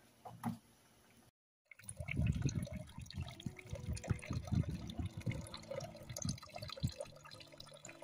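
Live pond loaches wriggling in a bucket of water: a dense, uneven run of small wet splashes and slaps. Before it, about half a second in, a single short clink of a ladle against the stew pot.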